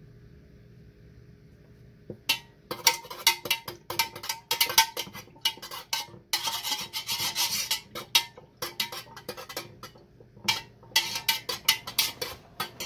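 A metal spoon scraping and tapping inside an aluminium wax-pouring pitcher as green dye is stirred into melted paraffin wax. It starts about two seconds in as a quick, irregular run of scrapes and taps, with a short steadier stretch of scraping in the middle.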